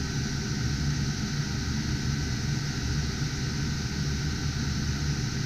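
Cooling fans of GPU mining rigs running steadily: a constant whirring rush with a low hum underneath and a thin steady whine above.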